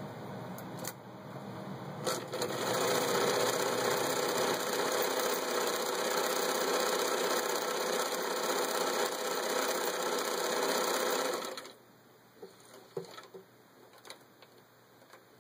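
Vintage Bernina Record 830 sewing machine stitching a decorative pattern through fabric. The motor and needle mechanism run steadily, get louder about two and a half seconds in, then stop suddenly about three-quarters of the way through, with a few faint clicks after.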